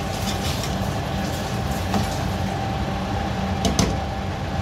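Slotted metal spatula scraping and knocking against an aluminium cooking pot as cooked biryani rice is turned, with a pair of sharper clinks a little before the end, over a steady low mechanical hum.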